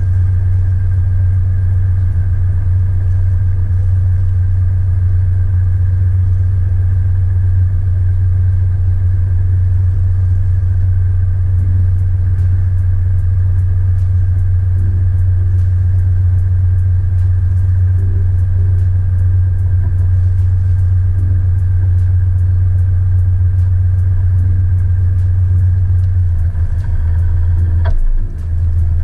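Sailboat's inboard engine running steadily while motoring through a harbour manoeuvre, a deep even drone that dips briefly near the end.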